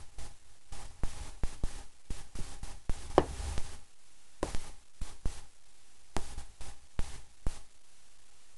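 Toy poodle crunching and gnawing a raw meaty turkey bone: irregular sharp cracks and clicks of teeth on bone, several a second, in bouts with short pauses between them.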